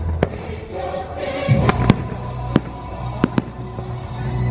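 Aerial fireworks shells bursting, about half a dozen sharp bangs at uneven intervals, over the loud music of the fireworks show's soundtrack.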